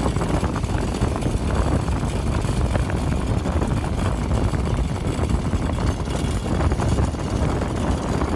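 Yerf Dog go-kart's small engine running steadily under way, with a dense rumbling noise and no pauses.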